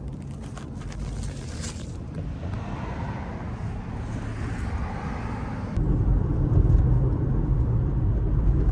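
Car engine and road noise while driving, a steady low rumble that gets suddenly louder about six seconds in.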